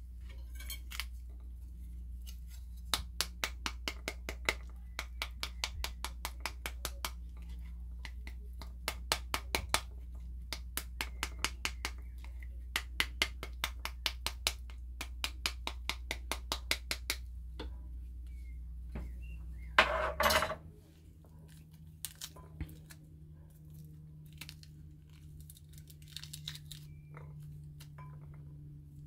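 Pomegranate half being knocked on its skin side with a kitchen utensil to shake the seeds out onto a plate: runs of sharp knocks, about five a second, with short pauses between runs. A louder clatter comes about two-thirds of the way in, and a steady low hum stops at the same moment.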